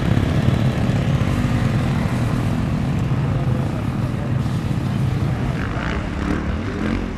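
Motocross bike engines running on the track, a steady droning engine noise. A PA voice comes in faintly near the end.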